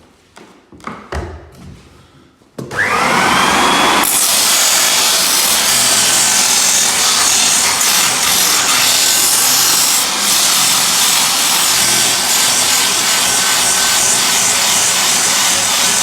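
A few light knocks, then about three seconds in an electric power tool starts, its motor rising in pitch as it spins up, and runs steadily with a loud, rough noise as it works the pine floorboards.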